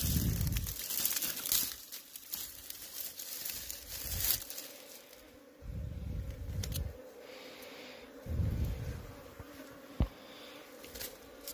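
Honeybees from a disturbed wild nest buzzing with a steady hum, mixed with dry grass stalks crackling and rustling as they are pushed aside by hand. There are a few dull low bumps and one sharp click near the end.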